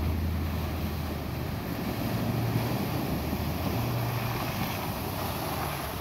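Lexus GX470 SUV's V8 engine running steadily as it drives through a shallow creek, water splashing and washing around its tyres as it comes up close.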